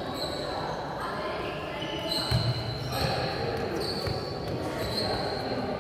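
Volleyball being bounced on a sports-hall floor, with a louder thud about two seconds in, against background chatter and short high squeaks from shoes on the court.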